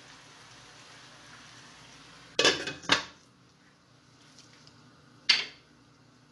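Glass lid set onto a stainless steel saucepan, two quick sharp clanks about two seconds in, then one more sharp knock near the end. A faint steady hiss of the simmering pot runs underneath.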